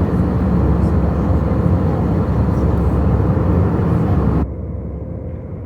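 Steady engine noise heard inside a passenger airliner's cabin, heavy in the low end. About four seconds in it abruptly turns duller and quieter.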